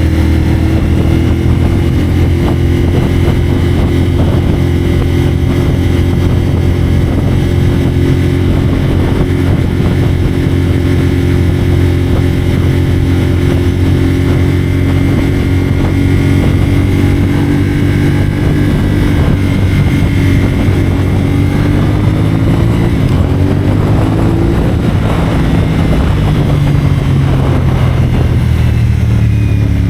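CFMoto 450SR parallel-twin engine running through a Yoshimura AT2 slip-on exhaust while the bike is ridden. It holds steady revs for most of the stretch. About two-thirds of the way through the pitch rises, then falls away as the revs drop near the end.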